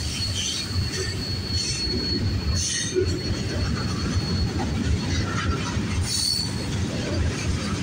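Freight train of autoracks and boxcars rolling past with a steady low rumble, wheels squealing: a thin high squeal that fades out about three seconds in, and several short squeals through the rest.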